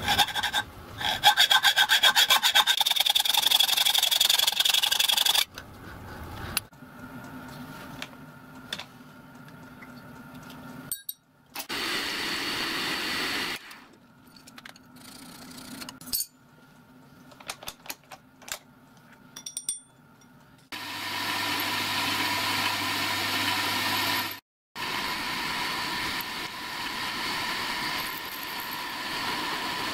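A hacksaw cuts through a brass slide-valve blank held in a vice, in quick, steady strokes; this is the loudest sound. It is followed by light tool and handling clicks. Then a milling machine runs steadily with a hum while its end mill cuts the brass.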